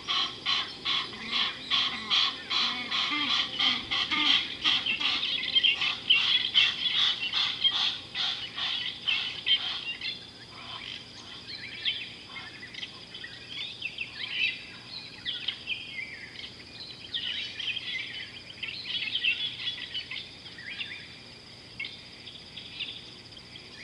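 Wild birds calling: a fast, even run of repeated high calls, about two or three a second, for the first ten seconds or so, then scattered short chirps.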